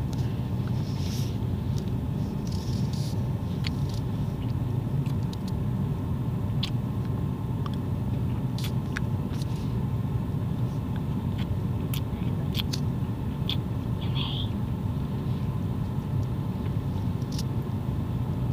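Steady low rumble of a moving van heard from inside the cabin, with a few scattered sharp little clicks and ticks over it.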